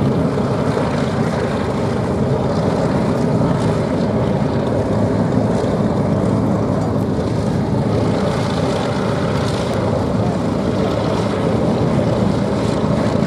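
Rolls-Royce V12 piston engines of a group of Spitfires, some with Griffon engines, running together in a loud, steady drone.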